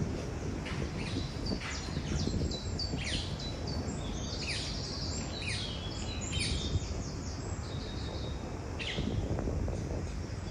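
Songbirds singing and chirping, many short quick falling notes and trills, over a steady low rumble of outdoor background noise.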